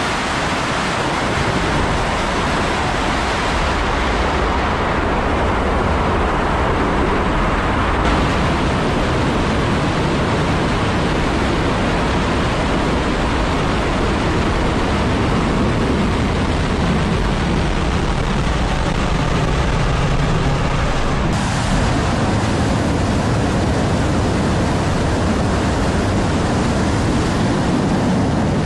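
Soyuz-2.1b rocket's kerosene-oxygen engines firing at ignition and liftoff: a loud, steady rocket roar that holds throughout.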